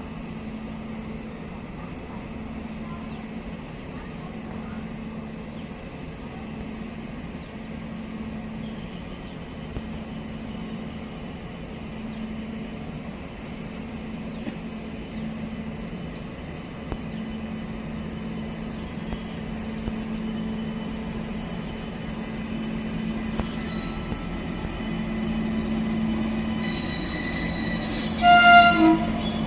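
WAP-7 electric locomotive running with a steady hum that slowly grows louder as it draws near, then sounding its deep horn in two quick blasts near the end.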